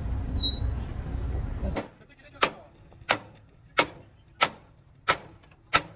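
A low engine rumble cuts off about two seconds in. It is followed by six evenly spaced hammer blows, about three every two seconds.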